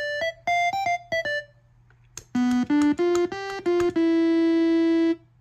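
Homemade synthesizer pen playing in its electronic keyboard voice through an amp: a quick run of short notes, a short pause, then a second phrase of notes that ends on one note held for over a second.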